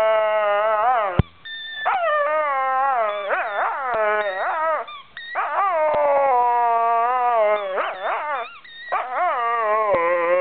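A dog 'talking' with a squeaky tennis ball in her mouth: loud, long, wavering howl-like moans that slide up and down in pitch. They come in four stretches broken by short pauses.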